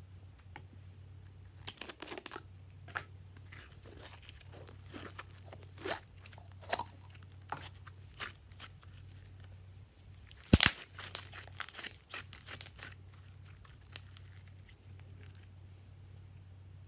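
Hands squeezing, folding and stretching thick glossy slime, giving scattered wet clicks, pops and crackles, with the loudest cluster a little past halfway.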